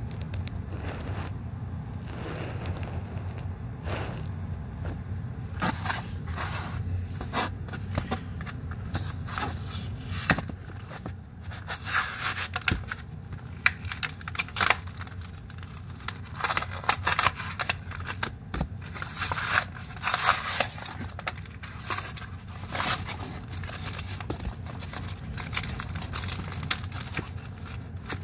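Plastic blister packaging and cardboard backing of a trading-card booster three-pack being torn open by hand: crackling, crinkling plastic and ripping card in irregular bursts, starting a few seconds in.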